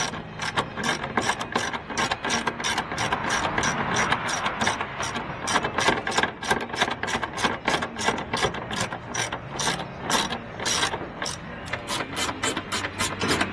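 Hand ratchet wrench clicking as a bolt is turned: a long, even run of sharp clicks, about five a second, with brief pauses.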